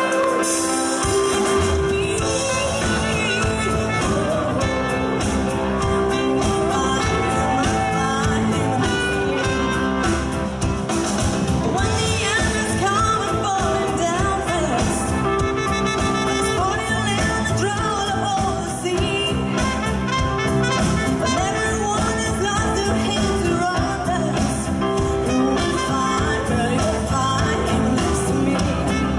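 A live band playing a song: drum kit, bass guitar, electric guitar and keyboard, with a woman singing and a trumpet.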